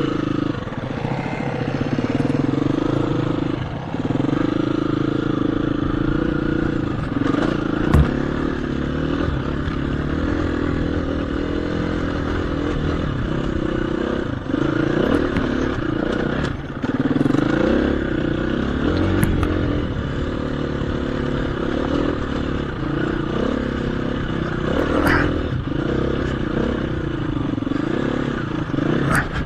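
KTM 350 EXC-F's single-cylinder four-stroke engine, heard from the rider's seat, revving up and down with the throttle as the bike picks its way up a loose rocky lane. Stones clack and knock against the bike, the sharpest knock about eight seconds in.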